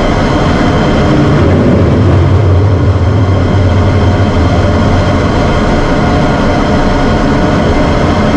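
F-16 Fighting Falcon's single turbofan jet engine running steadily: a loud, even noise with a strong low hum and several steady tones over it.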